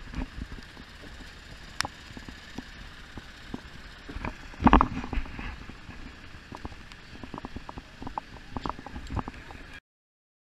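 Footsteps coming down aircraft boarding stairs and walking on the apron, with knocks from handling the camera, over a steady background hum. There is one loud knock about halfway through, and the sound cuts off shortly before the end.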